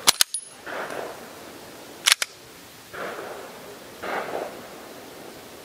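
A semi-automatic pistol's slide is worked by hand: sharp metallic clicks at the start and again about two seconds in, with handling rustle between. This is the gun being checked after a malfunction that turns out to be a squib load.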